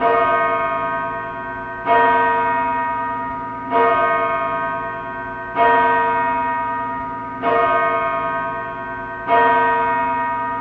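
A single church bell tolling, struck six times a little under two seconds apart, each stroke ringing on and fading before the next.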